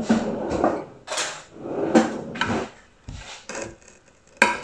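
Kitchen handling: a drawer sliding and a metal serving spoon clattering as it is taken out, a run of short scrapes and clatters. A sharp clink comes near the end.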